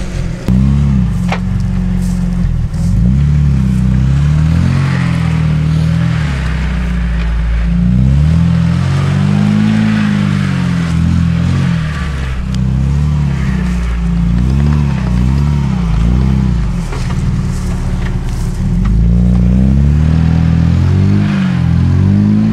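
UAZ Patriot's engine revving up and down over and over as the SUV claws its way up a steep, rutted mud slope, working hard under load.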